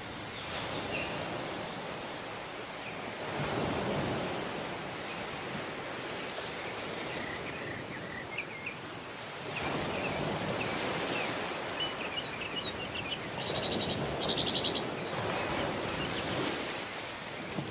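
Ocean surf on a beach, waves washing in about every six seconds. Small birds chirp in the background, and one gives a fast trill near the end.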